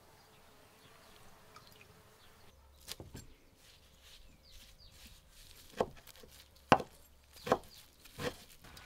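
Faint rural background with a few bird or insect calls, then a large kitchen knife chopping fresh nettle leaves on a wooden cutting board: about five separate, unhurried knocks of the blade on the board, the loudest near the end.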